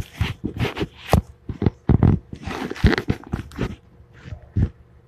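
Kitchen handling noise: a quick run of knocks, bumps and rustles as things are moved about, thinning out after about three and a half seconds with one last knock near the end.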